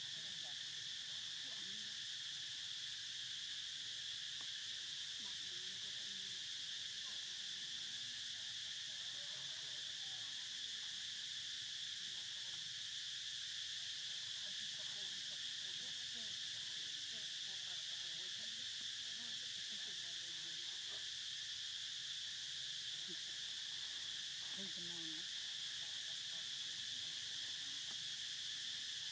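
Steady insect chorus: an even, high-pitched drone with faint scattered low sounds beneath it.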